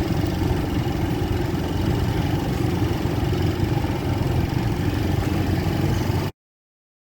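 Motorcycle engine running steadily while riding, with a dense, even low drone; the sound cuts off abruptly about six seconds in.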